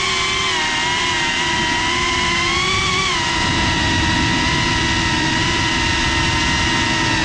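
GEPRC CineLog35 cinewhoop FPV drone's four brushless motors and ducted propellers, heard from the onboard camera: a loud, steady buzzing whine whose pitch shifts with the throttle, rising slightly near three seconds in and then dropping, over rushing air noise.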